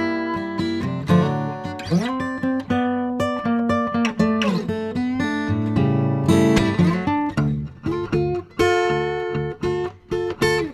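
Background music: acoustic guitar picking and strumming, with a few sliding notes.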